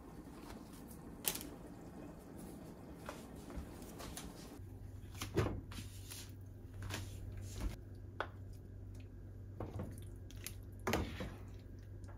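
Kitchen handling sounds: a few light knocks and clinks, then, from about four and a half seconds in, a steady low hum beneath water being poured into a frying pan of simmering diced vegetables and a wooden spatula knocking against the pan as it stirs.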